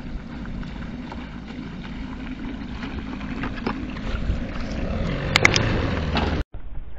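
Outboard boat motor idling with a steady low hum, under wind rumble on the microphone. A few sharp clicks come about five and a half seconds in.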